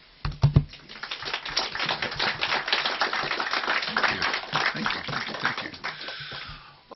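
An audience applauding: a few loud claps at first, then dense, steady clapping that fades out near the end.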